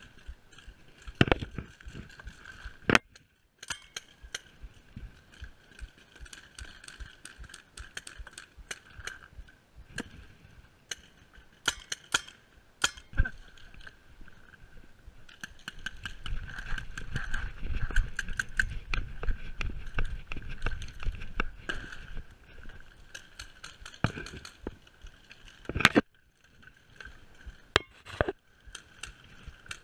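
Paintball markers firing: scattered sharp pops and short quick volleys. Underneath is a steady faint high-pitched hum, with a stretch of low rumble in the middle.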